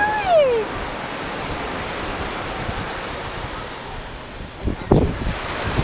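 Ocean surf washing over the shallows at the shoreline, a steady rushing hiss with wind buffeting the microphone. A brief knock about five seconds in.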